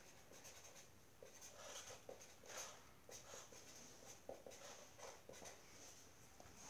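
Faint felt-tip marker strokes on paper: short, irregular scratchy strokes, several a second.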